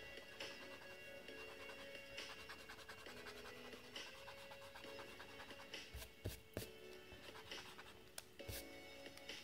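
Pencil scratching on sketchbook paper under soft background music, with a few dull knocks past the middle and another near the end.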